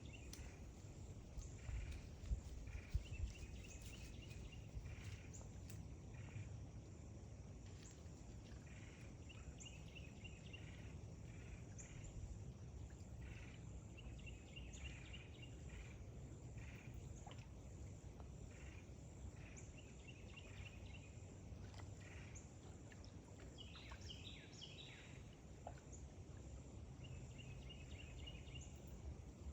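Faint outdoor ambience: short trilling animal calls recur every few seconds over a steady high hum and a low rumble.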